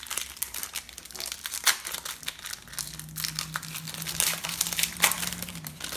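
Trading card packs and cards being handled: crinkling of pack wrappers and cards with many short crackles.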